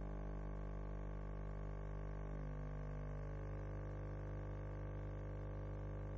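Soft background music of held, sustained chords, with a change of chord about two and a half seconds in.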